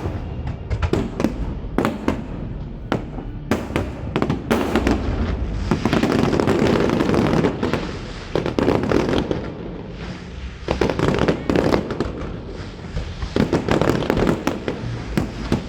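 Aerial fireworks going off in quick succession: repeated sharp bangs of bursting shells, with several stretches of dense crackling between them.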